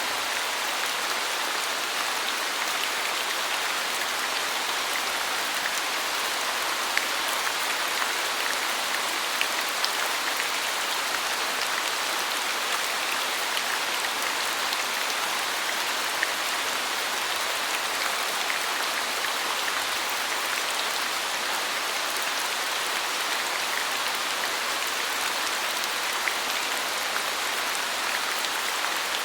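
Steady rain falling, an even hiss with many small drop ticks scattered through it and a few slightly louder drops.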